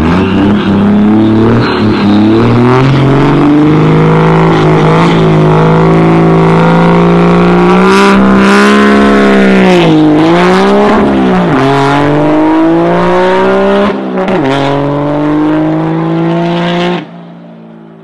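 Very loud swapped 2nd-gen Cummins 5.9 L inline-six turbo diesel in a pickup truck, revving hard under load as the truck pulls away and turns, its pitch climbing and dropping several times. The sound cuts off near the end.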